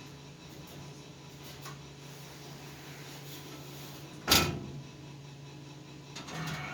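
One sharp clunk about four seconds in, over a steady low hum.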